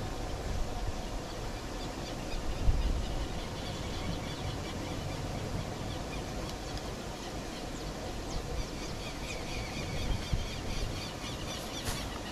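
Wind rumbling on the microphone, with small birds chirping over and over. A single knock near the end, as someone steps close by.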